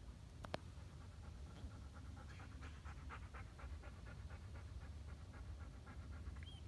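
Distant basilica church bells ringing: a quick, even run of faint strikes, several a second, starting about two seconds in, over a steady low wind rumble. A single sharp click about half a second in.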